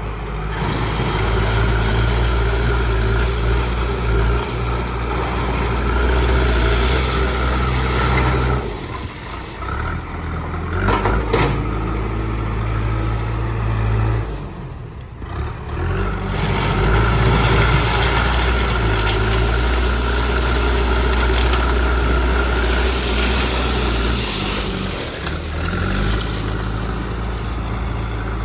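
Diesel engine of a JCB backhoe loader running under changing load, swelling and easing off, with dips about nine and fifteen seconds in. There is one short knock about eleven seconds in.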